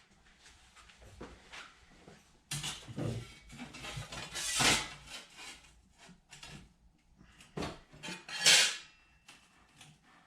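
Metal clanking and scraping as a small metal plate is handled and set in a sheet-metal brake: a string of irregular knocks, the loudest about four and a half and eight and a half seconds in.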